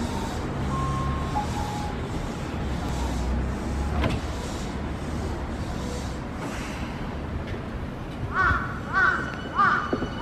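Yokohama Minatomirai Railway Y500 series electric train standing at the platform, its equipment giving a steady low hum. Near the end come four short, harsh calls about half a second apart.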